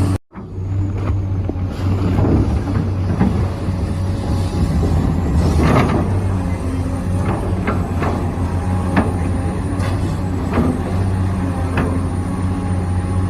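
Remote-control construction model running: a steady motor hum with occasional sharp knocks and clanks.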